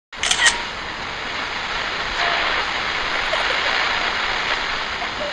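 Rushing water that cuts in suddenly out of silence with a brief louder burst, then settles into a steady, dense rush with faint squeaky trickles in it.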